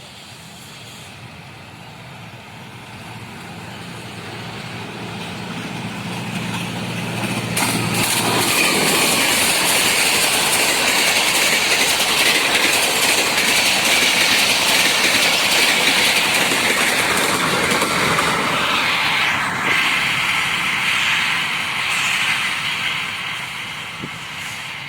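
Passenger express train approaching and passing at high speed: a low locomotive hum grows louder over the first eight seconds, then a loud rushing of the coaches goes by for about ten seconds before fading away.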